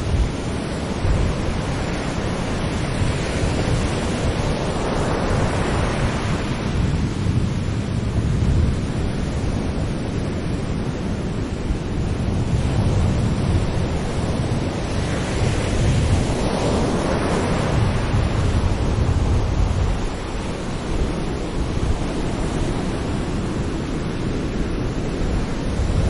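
Sea waves breaking gently on a shore: a continuous wash of surf that swells twice as waves come in and recede.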